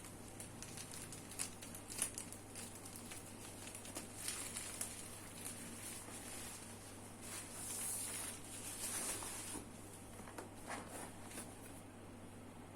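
Hands handling a keyboard's packaging: scattered light taps and clicks with plastic or paper rustling, a longer rustle about eight seconds in, over a faint steady low hum.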